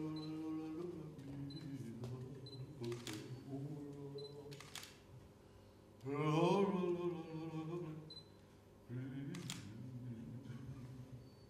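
A man's voice sounding long, wordless, pitched notes in three phrases, each starting with an upward glide, with a few sharp clicks between them.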